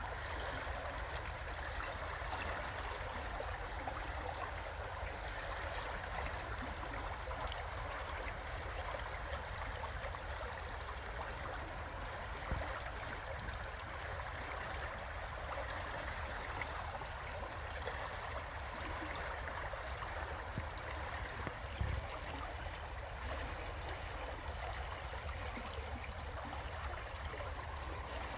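River water flowing steadily over rocks, an even rushing hiss with a low rumble beneath. Two brief bumps stand out, about halfway through and again near three quarters of the way.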